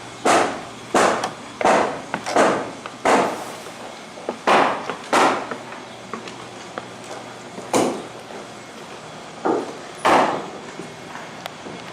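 Hammer blows on wood in an uneven run: a quick string of strikes at first, then fewer with longer pauses between them.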